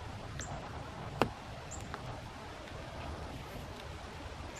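A single sharp click about a second in as hands pull the rubber glass run channel down from the minivan's door window frame, over a low background with a few faint high ticks.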